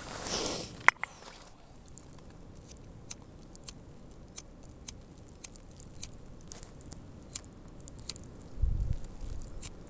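Irregular light ticking of falling snow and ice pellets striking a jacket and gear in a blizzard, a few ticks a second. A rustle and a single sharp metallic click come about a second in, and a low rumble of wind or handling near the end.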